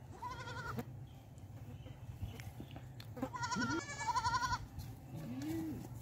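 Goat kids bleating: a short, high, quavering bleat right at the start and a longer, louder quavering bleat from about three to four and a half seconds in, with a lower call near the end.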